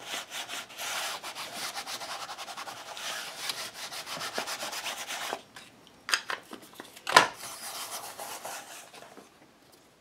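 A Distress Oxide ink pad scrubbed rapidly back and forth over paper pages, a fast dry rubbing for about five seconds. A few light clicks follow, with one sharp click of the plastic ink pad case about seven seconds in.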